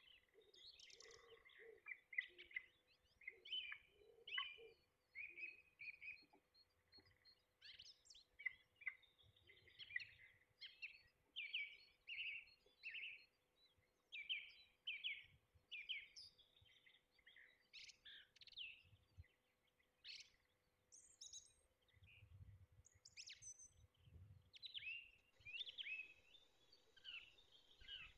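Faint birdsong: many short chirping notes in quick repeated phrases, with a faint steady hum underneath.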